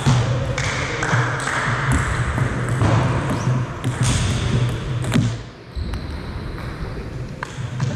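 Table tennis rally: sharp clicks of the ball off the bats and table about twice a second, stopping after about three seconds. A few scattered knocks follow.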